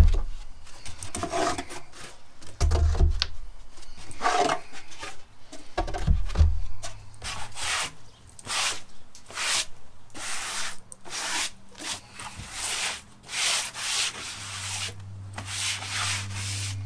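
A hand brush sweeping a wooden bench top in quick scratchy strokes, about two a second, from about seven seconds in. Before that come a few dull thumps.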